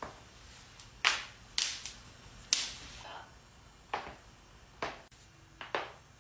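A run of sharp joint cracks and pops, about seven in all at irregular spacing, with the loudest three in the first half.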